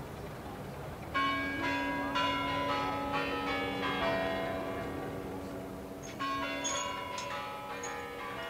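Kremlin Spasskaya Tower clock chimes: bells struck in a quick sequence starting about a second in, their tones ringing on and overlapping, with a fresh run of strikes about six seconds in.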